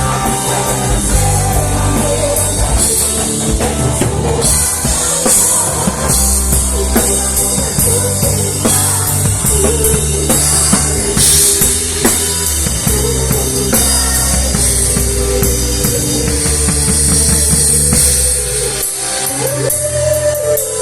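Live worship band playing an instrumental passage, with the drum kit prominent over sustained bass notes and a held melodic line.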